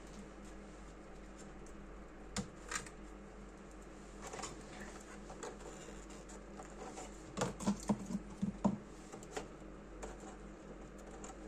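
Light clicks and taps of a computer's plastic case parts being handled during disassembly, with a quick run of clicks about seven and a half to nine seconds in.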